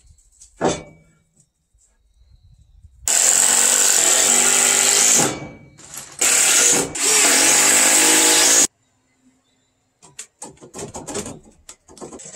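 A cordless drill runs in two loud, steady bursts of about two seconds each, a brief gap between them. Light knocks of wood being handled follow near the end.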